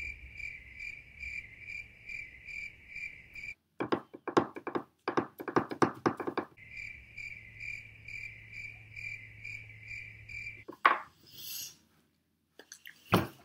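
Crickets chirping in an even pulse of about three chirps a second, starting and stopping abruptly like an added sound effect. It breaks off for a few seconds in the middle for a quick run of sharp clicks and knocks, then resumes.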